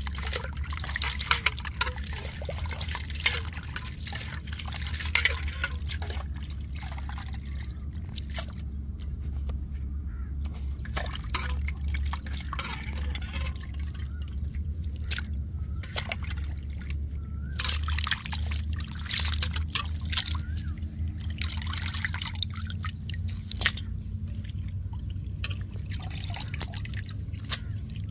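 Water splashing and dripping as cut squid rings are washed and squeezed by hand in a metal basin of water, in irregular bursts with quieter gaps.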